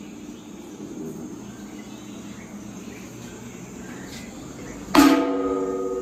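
A sharp metallic clang from the stainless steel furnace shell and lid about five seconds in, ringing on in several steady tones that slowly fade.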